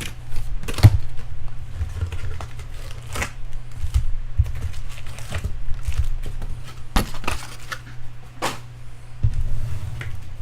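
Hands opening a baseball card hobby box and its foil packs: scattered taps, rustles and wrapper crinkling over a steady low hum.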